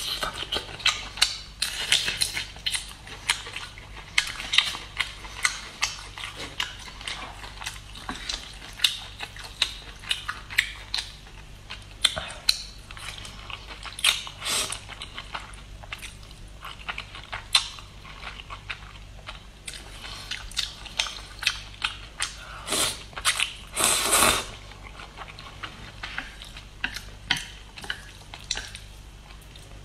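Close-miked eating sounds of instant noodles: rapid wet chewing smacks and clicks, with chopsticks tapping the plate, and a couple of longer slurps about three-quarters of the way through.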